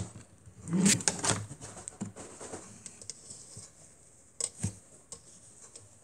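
Handling noise from a small portable washing machine with a spin dryer. A click as the plastic lid is opened, then a burst of plastic knocks and rustling about a second in as a hand reaches in among the laundry in the stopped spin basket. Two short knocks follow near the end.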